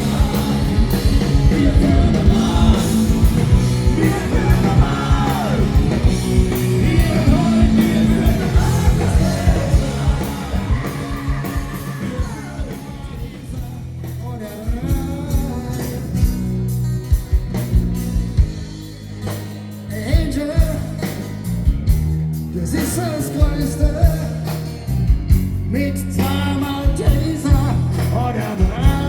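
Live band playing a rock-style song with a singer, drums and guitar. The music drops quieter about halfway through and builds back up near the end.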